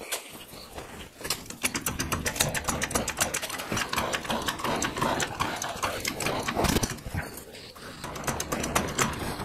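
Hydraulic floor jack being pumped to lift the front of a truck: a rapid, uneven run of clicks and metallic knocks from the working handle, starting about a second in.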